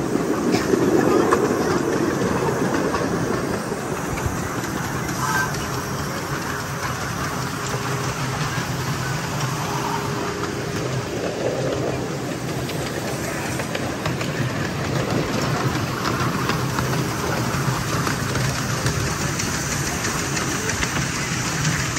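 Ride-on miniature railway train running steadily along its track, heard from on board.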